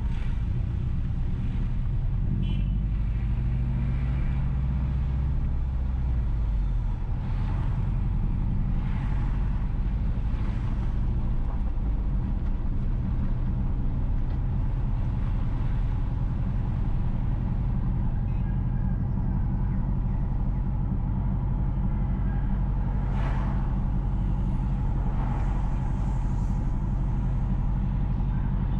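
A car driving along a road: steady engine hum and tyre rumble, its engine note shifting about six seconds in. A few brief whooshes pass, most clearly about 23 seconds in.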